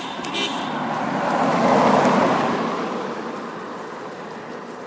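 A vehicle driving past on the road: a wash of tyre and engine noise that swells to a peak about two seconds in, then slowly fades away.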